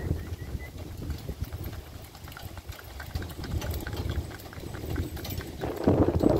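Hooves of a pair of miniature horses trotting on pavement, a quick run of clip-clops over a low rumble, getting louder near the end as the team passes close.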